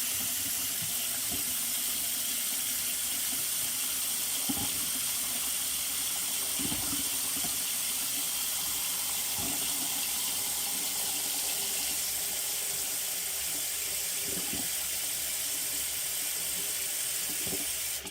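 Tap water running steadily into a sink to test the drain after plunging out a clog, with a few soft low thumps in the basin.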